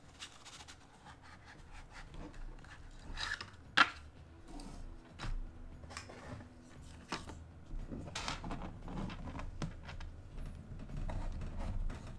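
Paper playing cards being handled and shuffled on a tabletop, with rustles, scrapes and light clicks as a pocket knife blade is worked against a stack of cards; one sharper click about four seconds in.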